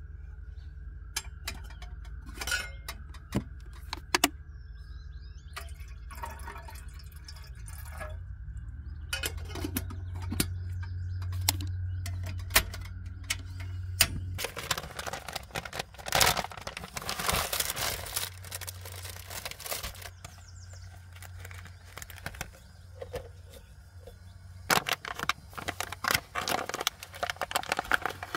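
Clicks and knocks of a portable butane camping stove and a metal kettle being handled. About halfway through, the stove's knob is turned to light the burner and a gas-flame hiss follows. Near the end come crinkling and clicks as a packet of coffee is handled.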